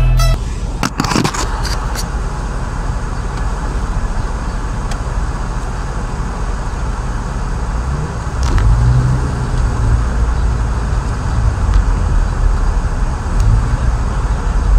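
Car cabin noise while driving: a steady low rumble of engine and road heard from inside the car. A few clicks come near the start, and the low rumble grows louder about eight seconds in.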